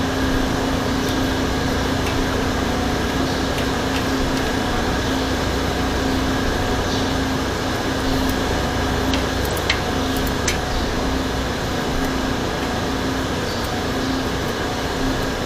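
Steady machine-like hum with hiss, with a few faint light clicks about ten seconds in.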